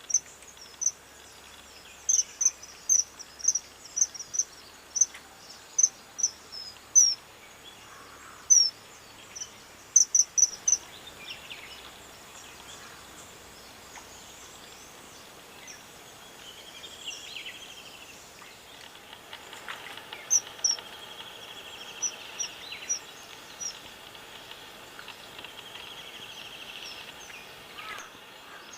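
Common kingfisher calling: a string of short, sharp, high-pitched whistled notes in quick succession through the first half, then a shorter run of a few notes a little past the middle.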